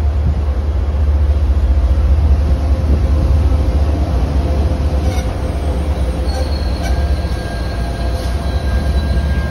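MBTA commuter rail bilevel coaches rolling past at close range: a loud, steady low rumble of steel wheels on rail. A few sharp clicks come in the second half, along with a faint high-pitched wheel squeal from about six seconds in.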